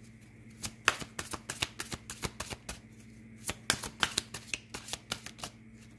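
A deck of oracle cards being shuffled by hand: a quick, irregular run of card flicks and snaps that starts about half a second in and stops shortly before the end.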